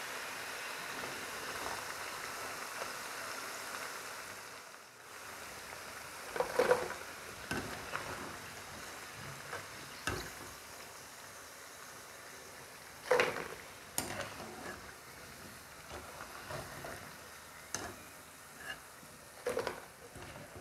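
Hot oil sizzling steadily around deep-frying gavvalu for the first few seconds, then stopping. After that come scattered knocks and scrapes from a wooden spatula tossing the fried gavvalu in jaggery syrup in a non-stick pan, a few of them louder clacks.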